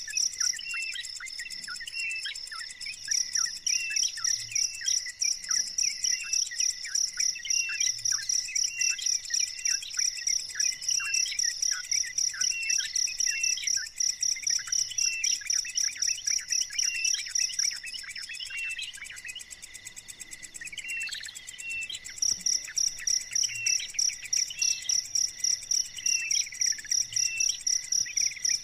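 Small birds, most likely newly hatched chicks, chirping rapidly in short falling peeps. Behind them runs a high, cricket-like trill pulsing about twice a second, which breaks off for a few seconds about two-thirds through and then starts again.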